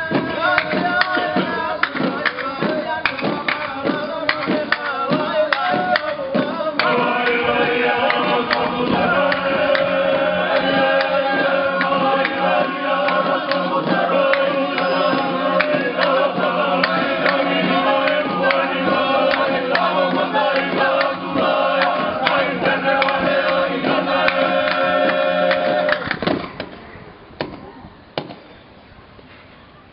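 Music with group singing in harmony: a quick rhythmic beat for the first several seconds, then sustained voices singing together. The music stops about 26 seconds in, leaving quieter background sound.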